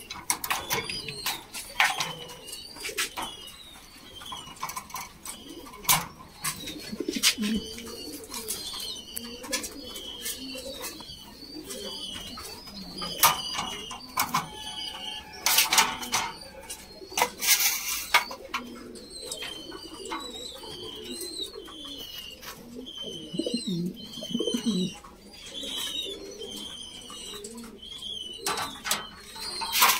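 Caged fancy pigeons cooing, a low, wavering sound that comes and goes. Many short, high chirps repeat throughout, and there are scattered sharp knocks.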